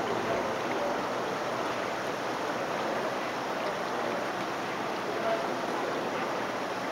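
A quiet lull: steady outdoor background hubbub with faint, indistinct voices.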